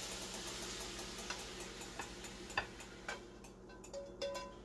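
Sizzle of fried onion and pineapple dying away as the skillet comes off the heat, then scattered light clicks and taps as the spatula scrapes the food out of the nonstick pan into a bowl, with one brief ringing clink near the end.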